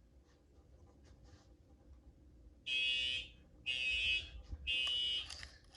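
Fire alarm sounder going off in the temporal-three evacuation pattern: three high-pitched beeps about a second apart, starting about two and a half seconds in. The system has gone into alarm after a Firelite BG-12 manual pull station was pulled.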